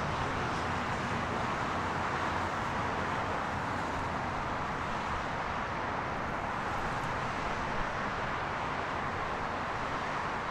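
Steady, even noise of a Boeing 777-300ER's GE90 jet engines heard from a distance as the airliner slows on the runway after landing.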